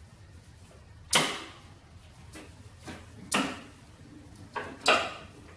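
Quick-release locks on a Worx Nitro 40V lawn mower's folding handle being worked by hand: three loud, sharp clacks, each ringing briefly, with a few lighter clicks between them.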